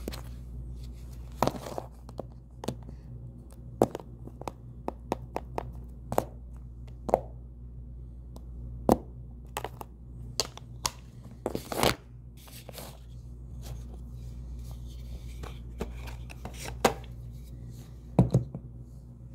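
Clear plastic ear-tip cases and paper cards handled on a wooden table: irregular sharp clicks and taps as the cases are picked up and set down, over a steady low hum.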